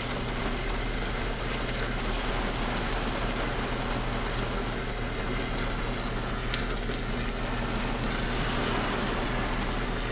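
Downed live power line arcing, a steady electrical hum and hiss. One sharp pop about six and a half seconds in.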